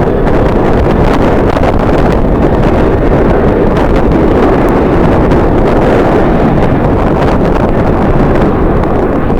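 Strong wind buffeting the microphone: a loud, steady, low rumbling noise with no distinct tones.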